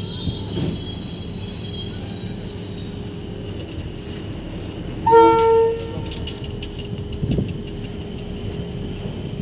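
Electric train running along the track, with one short horn blast about five seconds in, the loudest sound.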